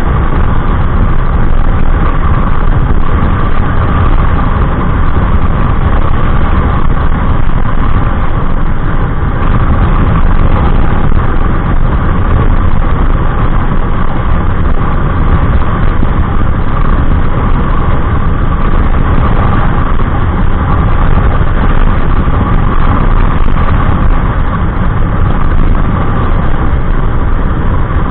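Honda Click 125i scooter's single-cylinder engine, fitted with an EXOS X6 aftermarket exhaust, running flat out at a steady top speed. A loud, even rushing noise, heaviest in the low end, holds without change.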